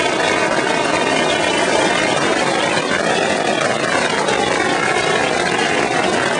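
Massed strings of firecrackers going off together in a continuous, dense crackle of rapid bangs, too fast to count and steady in level.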